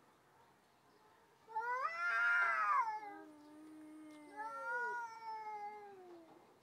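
Two cats yowling at each other in a threat standoff before a fight. A long, loud yowl rises then falls about a second and a half in. A lower drawn-out moan follows, then a second wavering yowl that slides down in pitch near the end.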